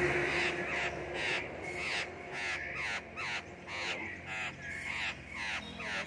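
Black-throated laughingthrush singing: a quick run of varied whistled notes that slide up and down in pitch, phrase after phrase.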